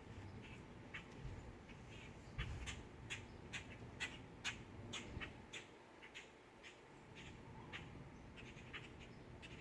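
Agitated birds giving many short, sharp calls in quick, irregular succession.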